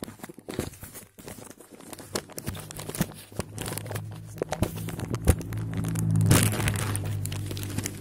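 Clear plastic packaging bags crinkling and crackling as they are opened and handled, with the loudest rustle about six seconds in. A steady low hum sits underneath from about two and a half seconds in.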